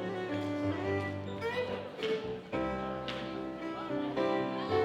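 Live contra dance band music with a fiddle carrying the tune over a steady bass line.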